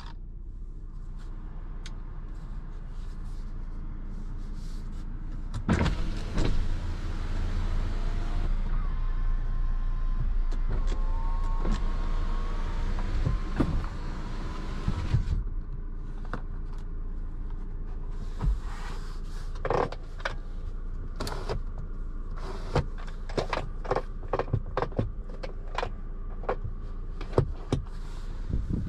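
Cabin of a stationary 2021 Audi Q5: a steady low hum throughout, with a louder rushing noise from about six to fifteen seconds in. After that comes a quick run of sharp clicks from the centre-console controls and gear selector being worked by hand.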